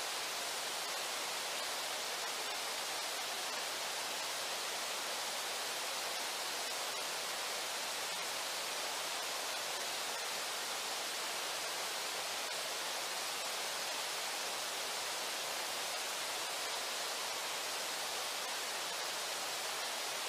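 Steady rushing of the Brooks River running below the falls: an even hiss of water with no breaks or changes in level.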